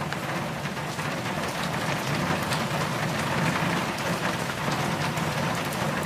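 Rain on a car's windshield with wet-road noise, heard from inside the moving car: a steady hiss with faint scattered drop ticks over a low hum.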